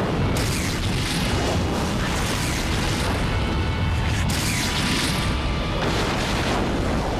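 Animated explosion sound effects: a continuous deep rumbling blast, with fresh bursts about half a second in and again around four seconds in, as a building is blown apart.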